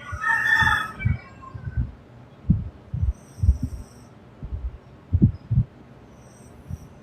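A person snoring: short, low snorts coming irregularly, a few to each breath. A louder, higher-pitched sound lasting about a second comes at the start.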